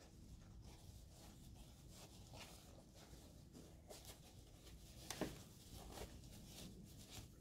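Faint rustling of fabric being handled and pushed into place by hand, with a sharper tap about five seconds in.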